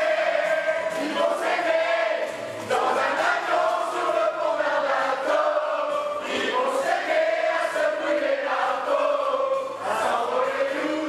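A group of men and women singing together from lyric sheets, one voice amplified through a handheld microphone, over steady musical accompaniment.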